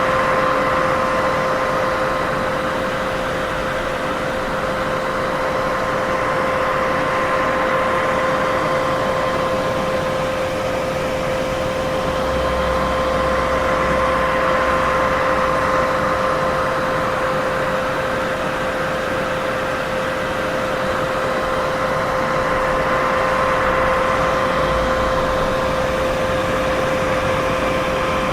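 Continuous white-noise sleep sound: an even hiss, fullest in the middle range, with a steady hum running through it and slow, gentle swells in loudness.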